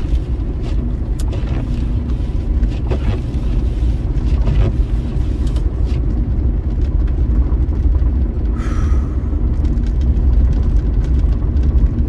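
Steady low rumble of a car driving at road speed, tyre and engine noise heard inside the cabin, with one short hiss about three-quarters of the way through.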